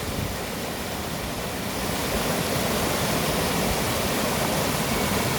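Steady rush of water from a mountain valley stream.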